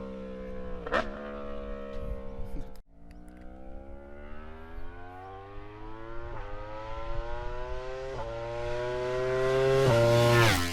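Yamaha R1 sport motorcycle engine: its pitch falls for a few seconds, cuts out for a moment, then climbs steadily and grows louder for about seven seconds before dropping off sharply near the end.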